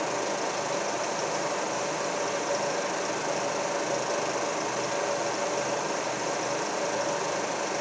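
Several Eiki 16mm film projectors running together on film loopers: a steady mechanical whirring with an even hum.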